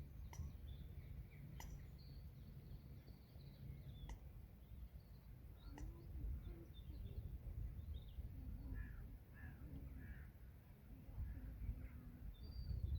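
Outdoor pond-side ambience: birds calling and chirping here and there, with a few lower, wavering calls in the second half, over a low steady rumble. A few sharp clicks are heard in the first half.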